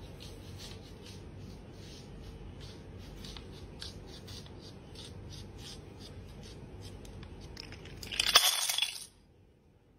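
Steady background hiss with light ticking, then about eight seconds in a sudden loud clatter lasting under a second, as stacked plastic blocks topple onto a hard floor.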